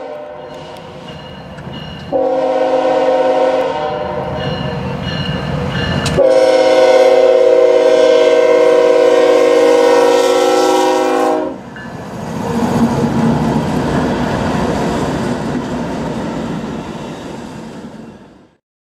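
Diesel freight locomotive's air horn sounding a chord in several blasts, the last held for about five seconds, then the rumble and clatter of the passing freight train, fading out near the end.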